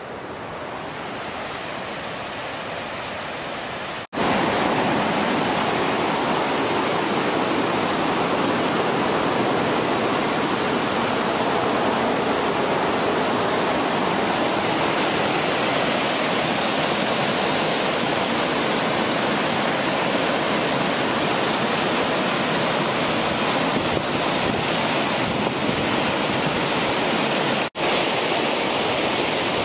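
Yosemite Creek rushing down a granite channel in whitewater rapids, a steady, even noise of water. It is fainter for the first few seconds, then loud and unbroken from about four seconds in, with two brief dropouts.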